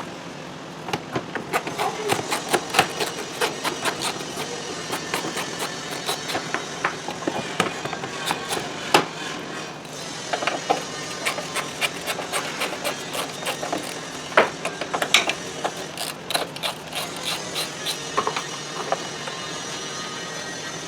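Workshop hand tools clicking and knocking on metal in a fast, irregular run, with a few louder knocks in the middle.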